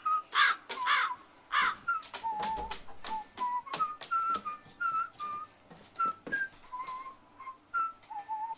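Carrion crow giving four short, harsh calls in quick succession in the first second and a half, then a thin whistled tune that steps between notes, with many sharp clicks.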